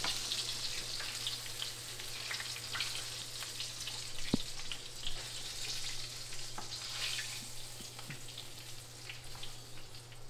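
Battered bass pieces frying in hot oil in a pan, a steady sizzle with small pops and crackles; the pieces are browned and ready to come out. A single sharp click about four seconds in.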